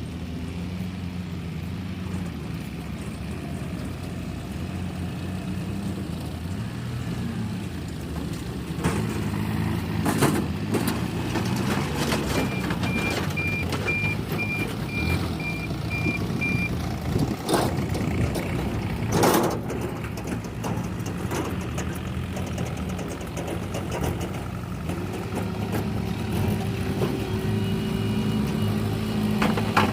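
Diesel engine of a backhoe loader running steadily, with a reversing alarm beeping about twice a second for around four seconds midway, and a few short loud bursts of noise.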